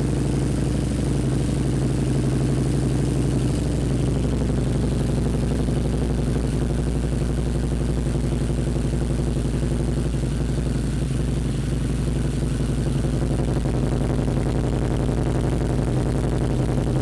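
Harley-Davidson V-Rod Night Rod's liquid-cooled V-twin idling steadily through aftermarket Tab mufflers, running on a freshly installed Tab fuel tuner.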